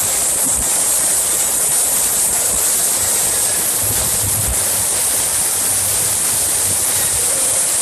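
Loud, steady rushing din of a crowded bar, with a few short low thumps.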